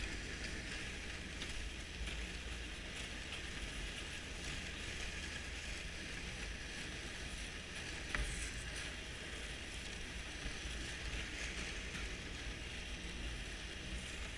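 Snowmobile running along a packed snow trail: steady engine and track noise, with a single sharp knock about eight seconds in.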